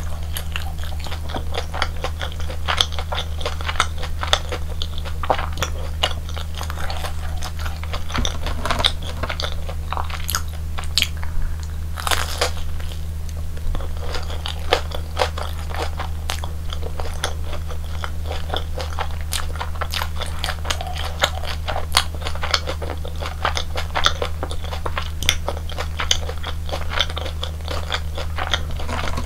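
Close-miked crunching and chewing of a crispy fried Korean hot dog: a dense run of sharp crunchy bites and chews, over a steady low hum.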